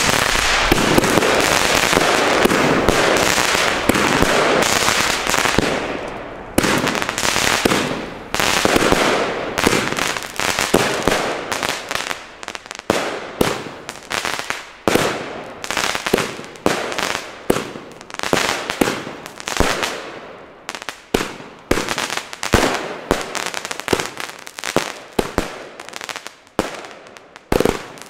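Argento Kanji fan-cake firework battery firing. A dense, continuous rush of hissing and crackling fills roughly the first six seconds. Then it breaks into a long run of separate sharp shots, about one to two a second, each dying away quickly.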